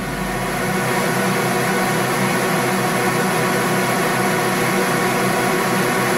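A loud, steady droning hiss and hum with no change in pitch, and a low rumble that fades away in the first second.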